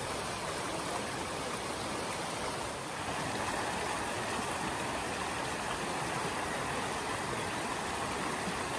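Mountain stream flowing steadily, a constant rush of water.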